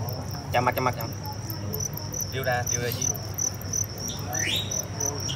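Fighting crickets chirping in the arena, a steady high chirp pulsing about three times a second.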